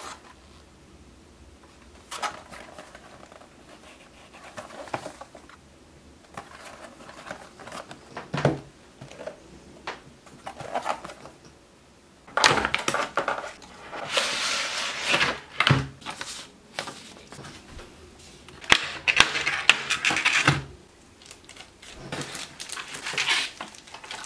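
Unboxing a model railroad car: cardboard boxes handled and slid open, then a clear plastic clamshell tray crinkling and clicking as it is opened. The loudest crinkling comes about halfway through and again near the end, with a few sharp clicks between.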